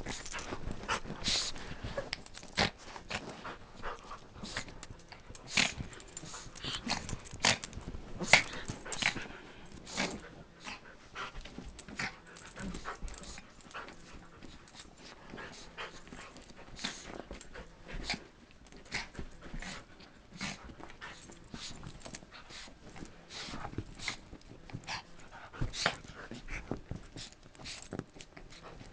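A small white dog and a big dark dog play-fighting on a couch: irregular scuffling and short sharp knocks and scrapes, with panting.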